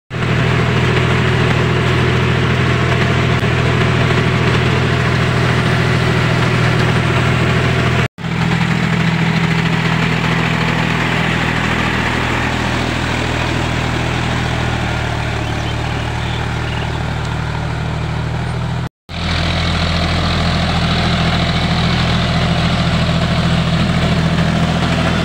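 John Deere tractor's diesel engine running steadily under load while pulling a rotary tiller through wet mud. The sound cuts out for a moment twice, about 8 and 19 seconds in.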